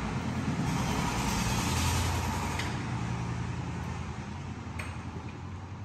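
A motor vehicle going by, its engine noise swelling to its loudest about two seconds in and then fading away.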